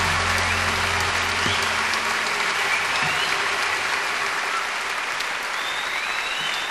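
A large concert crowd applauding and cheering, with whistles rising through it, as the last low notes of the band's song die away in the first couple of seconds.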